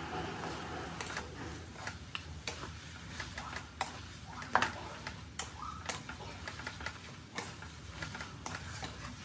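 Stir-fried noodles being tossed in a metal pan: irregular light clicks and taps of the utensil against the pan, with one louder knock about four and a half seconds in.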